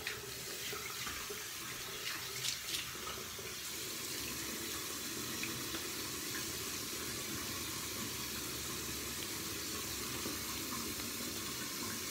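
Water running steadily from a bathroom sink tap into the basin, with a few faint clicks a little over two seconds in.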